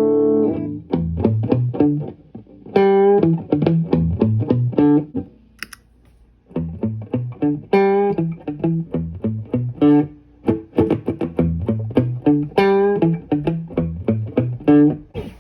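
Clean electric guitar through a Caline CP-47 Pressure Tank compressor pedal, with a little amp reverb: a chord rings out, then quick picked single-note phrases, with a brief gap a little past five seconds in.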